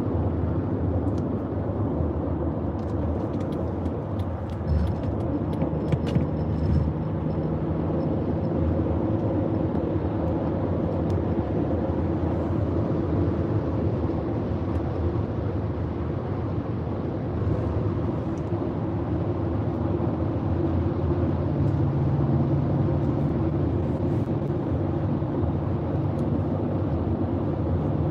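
Steady road and engine noise heard inside a moving minivan's cabin: an even low hum with tyre rumble, and a few light clicks here and there.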